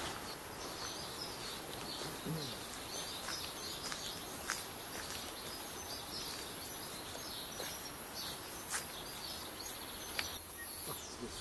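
Native bush ambience: a steady, high-pitched drone of insects, with many short bird chirps and calls scattered through it.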